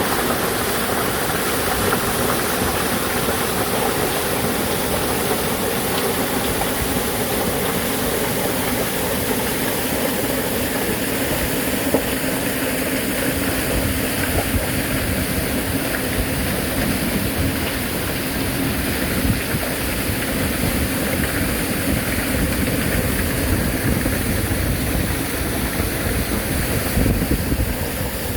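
Mountain stream water rushing steadily over rocks, a loud continuous wash of noise.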